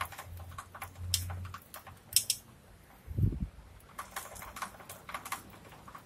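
Irregular light metallic clicks and ticks from a Honda C70's freshly oiled drive chain and rear sprocket being handled, with one dull thump about three seconds in.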